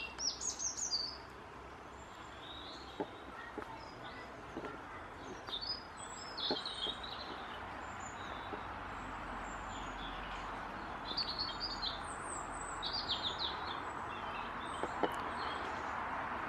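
Songbirds chirping and singing in short bursts a few seconds apart, over a steady rush of traffic from a nearby main road that swells a little toward the end.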